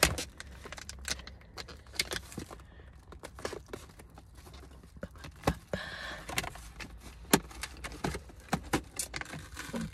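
Clear plastic clamshell food container being handled and pried open, with irregular crinkles, clicks and snaps of the thin plastic over a low steady hum.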